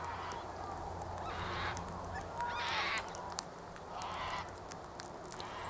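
Parrots in a feeding flock giving three short, harsh calls, the loudest in the middle, over faint scattered ticks.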